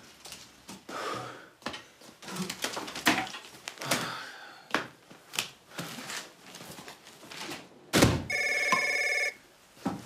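A telephone rings once with a trilling electronic ring lasting about a second, near the end, right after a loud knock. Before it there are scattered light knocks and clatter.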